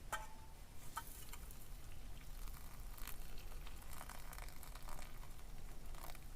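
Scattered light clicks, taps and rustles of small objects being handled, with a short ringing clink right at the start.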